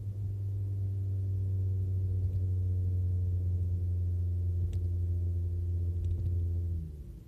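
Deep, steady exhaust drone from a 2014 Dodge Dart's modified exhaust on its 1.4-litre turbocharged four-cylinder, heard from inside the trunk, which muffles it. The drone drops away near the end.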